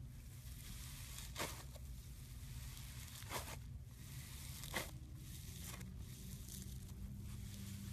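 Floam slime being squeezed and worked by hand, its foam beads crackling in a few short bursts over a low steady hum.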